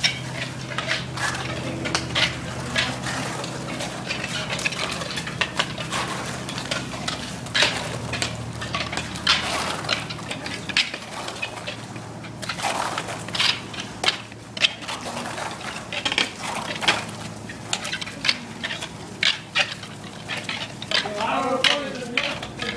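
Metal tools scraping and clinking in quick, irregular strokes over a steady low machine hum.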